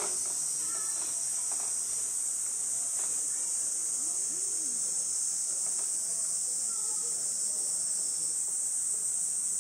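A steady, high-pitched chorus of insects droning without a break, with only faint scattered sounds underneath.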